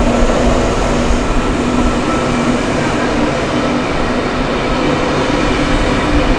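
Sydney Trains double-deck electric suburban train passing close by: a steady, loud noise of wheels running on the rails with a low, even hum underneath.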